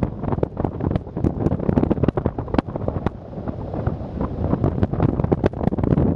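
Wind rushing and buffeting over the microphone of a camera carried in flight, uneven, with frequent crackles from gusts.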